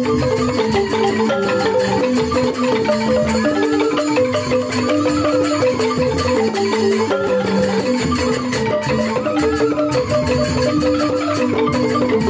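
Balinese joged bumbung gamelan playing: bamboo xylophones (grantang) strike fast, interlocking repeated figures over a kendang drum, with bamboo suling flute lines. The ensemble plays without a break.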